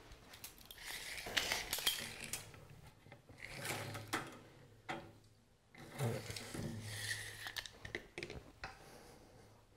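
Handling sounds of a tape measure and carbon-fibre turbine blades on a wooden tabletop: faint rubbing and small clicks in three short spells, about one, four and six seconds in.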